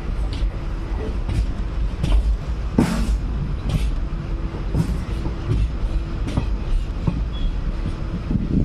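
Passenger train running along the line: a steady low rumble broken by irregular sharp clicks and knocks from the wheels and coaches, with one louder knock about three seconds in.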